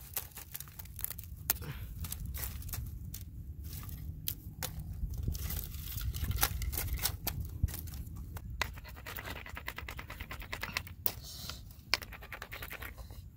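Bare hands scraping and scooping through dry soil and ash, with many sharp clicks and snaps as dry sticks are moved and laid over a fire pit.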